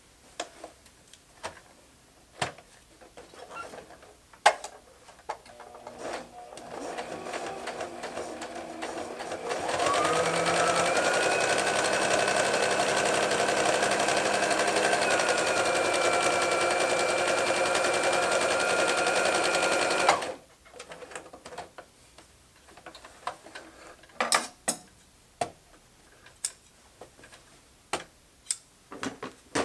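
Modern plastic domestic sewing machine sewing a test seam. After a few clicks it starts slowly, then about ten seconds in runs up to a steady fast whirr with a motor whine for about ten seconds, stopping suddenly; a few clicks and taps follow. It is now correctly threaded with the top tension set, and sews fine.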